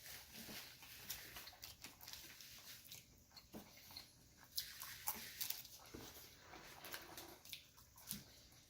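Faint, close-up chewing of a burger: irregular wet smacks and clicks of the mouth.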